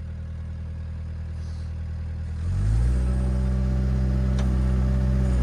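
Kubota mini excavator's diesel engine running at a low, steady speed, then about two and a half seconds in it speeds up and gets louder, holding steady at the higher pitch.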